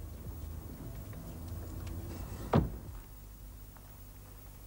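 A door shutting with a single sharp thump about halfway through, over a low steady hum.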